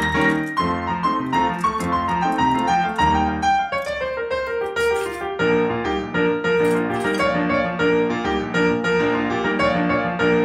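Background piano music, a melody of struck notes over chords at a moderate pace.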